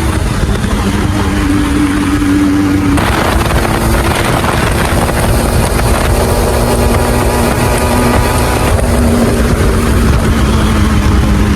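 Benelli motorcycle with its stock exhaust running under way, with wind buffeting the microphone. The engine pitch climbs over the first few seconds, drops about three seconds in, then holds fairly steady.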